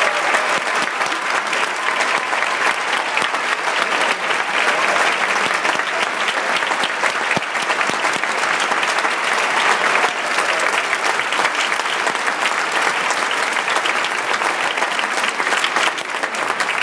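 Large audience applauding steadily, a dense mass of hand claps at the end of a choir piece.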